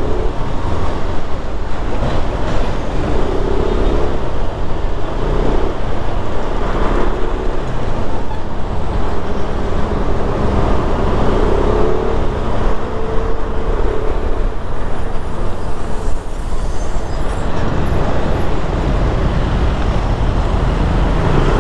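Steady road and wind rush from a Kymco Xciting S400i maxi-scooter riding in city traffic. Its engine is running, and other vehicles can be heard around it. A deep, even rumble of wind on the microphone dominates, and fainter engine tones rise and fall under it.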